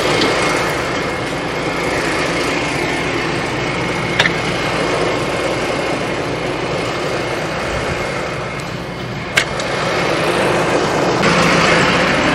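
Mahindra tractor's diesel engine running steadily, growing a little louder near the end, with two sharp clicks, one about four seconds in and one about nine seconds in.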